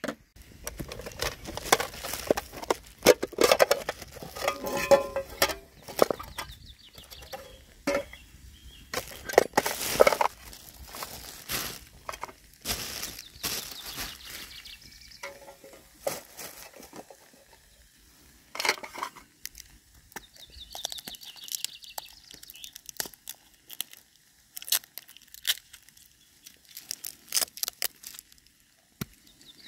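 Irregular clinks, knocks and rattles of metal camp cookware (steel mugs, aluminium mess tins and a stove cone) being handled and set down, busiest in the first half and sparser later.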